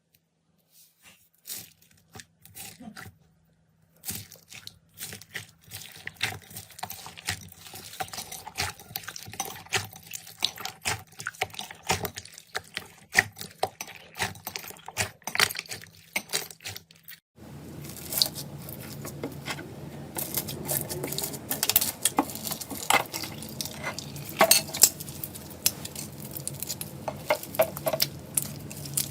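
Slime being squished, stretched and pressed by hand, giving dense crackling clicks and small pops. The sound changes abruptly about two-thirds through to a louder stretch of the same crackling over a steady low hum.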